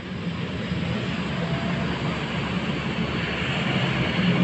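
Twin turboprop engines of a Bombardier Dash 8 Q400 airliner running on the runway: a steady low rumble with a hissing whine that slowly grows louder.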